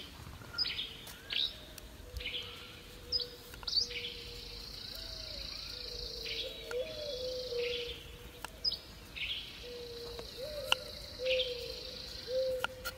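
Wild birds calling repeatedly in short high chirps, over stretches of high buzzing trill and a lower warbling whistle. A few light ticks come from a knife cutting fresh turmeric root on a wooden chopping board.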